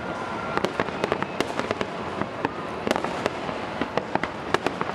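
Fireworks going off: a dense run of sharp cracks and pops, several a second, over a steady rumbling wash.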